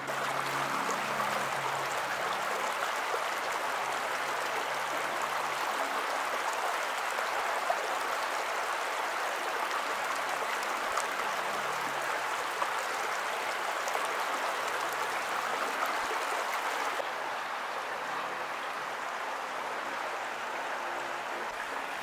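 Shallow creek water running steadily over rocks, an even rush, a little softer from about three-quarters of the way through.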